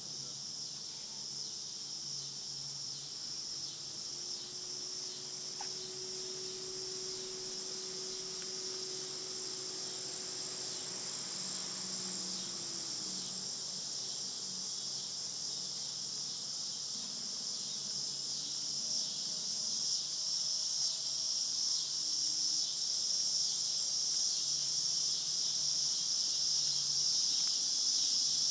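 Steady chorus of insects in summer trees: a continuous high-pitched buzzing that grows louder over the last part, with a faint hum passing by underneath in the first half.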